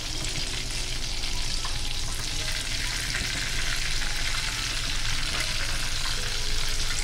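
Chicken lollipops frying in hot oil: a steady sizzle.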